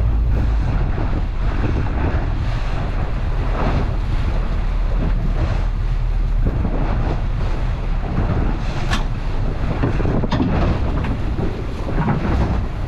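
Strong wind buffeting the microphone over choppy water around a small boat, with a heavy low rumble that eases slightly about half a second in. A few sharp knocks come in the second half.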